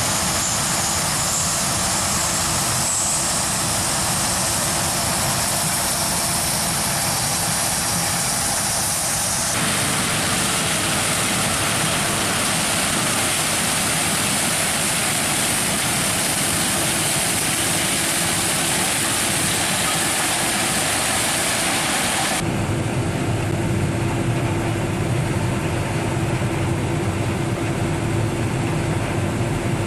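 Heavy farm machinery running steadily: combine harvesters and tractors working a corn harvest. The sound changes abruptly twice, about ten and twenty-two seconds in, and after the second change it has a deeper rumble with a steady hum.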